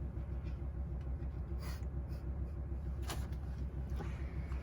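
Engine idling steadily with a low, pulsing rumble. Two short clicks or knocks sound over it, at about one and a half and three seconds in.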